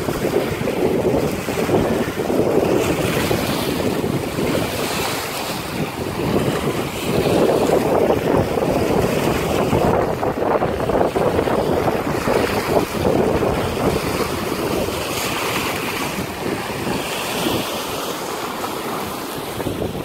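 Strong squall wind gusting hard against the microphone: a loud, continuous rushing that swells and eases.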